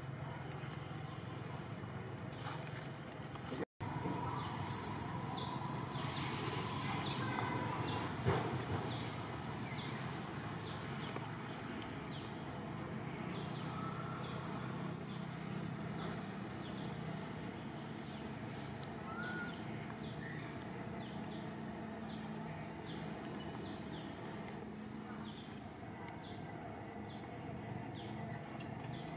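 Forest ambience: a steady background hiss with short high-pitched chirps repeating about once a second. The sound cuts out completely for a moment about four seconds in.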